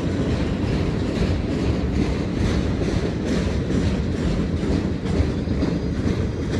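Train rolling past close by: a steady low rumble of wheels on rail with a faint, fairly regular clatter over it.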